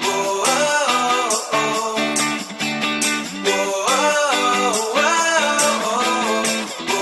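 Background music: a song with plucked guitar and a melodic line, with a steady beat.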